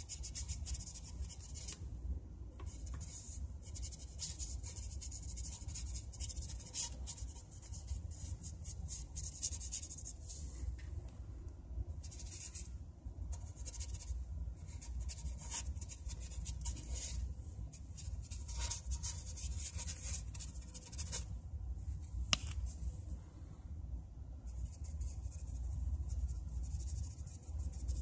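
A brush scrubbing and dabbing paint onto a canvas in irregular runs of short strokes, over a steady low hum.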